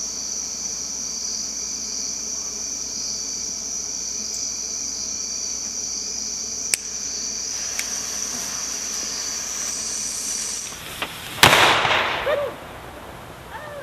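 Crickets chirping steadily, with a single sharp click about seven seconds in. Then a WiseGuy firecracker goes off with one loud bang about eleven seconds in, followed by about a second of crackling noise.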